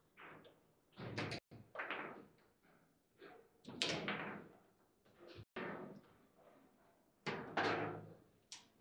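Table football being played: the ball is struck by the plastic players and hits the table walls, and the rods knock against the table. There are about ten sharp knocks at uneven intervals, a few of them loud shots.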